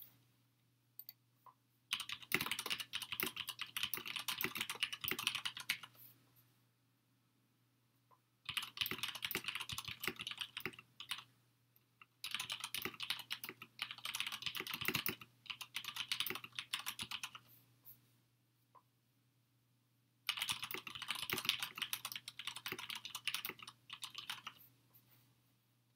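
Typing on a computer keyboard: four bursts of quick key clicks, each a few seconds long, with short pauses between.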